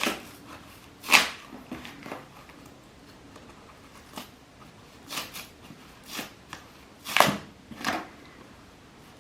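Cardboard box being cut open and its packing handled: short, irregular rustles and scrapes, about eight in all.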